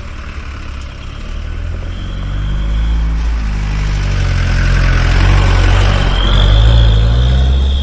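Road vehicle engine running on the move, its pitch shifting up and down, with road and wind noise building as it gets louder. A thin high whine comes in near the end.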